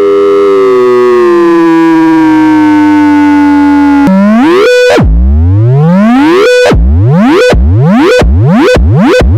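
Loud electronic synthesizer music. A cluster of held tones slowly slides down in pitch. From about four seconds in, repeated sweeping glides all meet on one steady note and come faster and faster.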